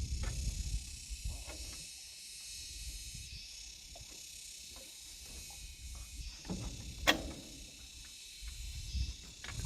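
Steady high-pitched insect chirring, with scattered low thumps and knocks; one sharp knock about seven seconds in is the loudest.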